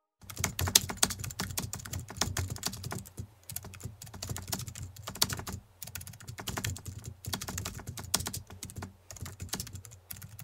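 Computer keyboard typing sound effect: a rapid, irregular run of key clicks that keeps going without a break.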